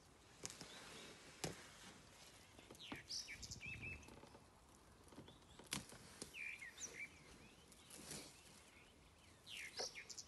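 Faint outdoor bush ambience with scattered short bird chirps and a few sharp clicks.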